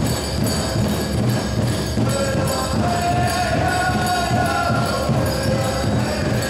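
Powwow drum song: a steady, even drumbeat with a group of singers chanting, their voices coming in more strongly about two seconds in.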